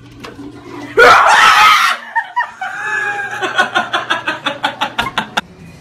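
A sudden loud scream about a second in, followed by a man laughing hard in rapid, rhythmic bursts of about four a second.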